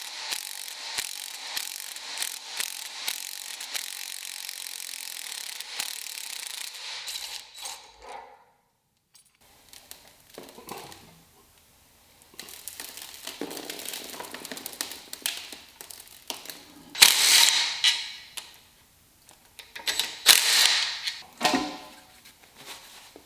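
Socket ratchet clicking in quick repeated strokes, about two a second, as bolts are worked on the engine. After a short silence come irregular metal working noises, with two loud scraping bursts in the second half.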